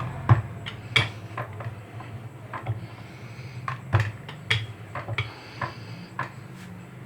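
Rolling pin working dough balls on a rolling board: irregular knocks and clicks, the sharpest about a third of a second in and at one second, over a steady low hum.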